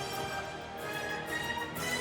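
Background music: a gentle orchestral piece with strings.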